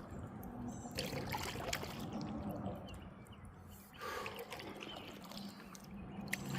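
Kayak paddle strokes through the water, two swishing pulls about three seconds apart with water trickling and dripping off the blade between them.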